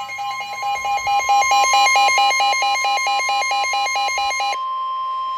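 Emergency alert tones: a steady, piercing warning tone like the one NOAA Weather Radio sends before an alert, overlaid for the first four and a half seconds by a warbling alarm that flips between two pitches about four times a second. After that the steady tone sounds alone.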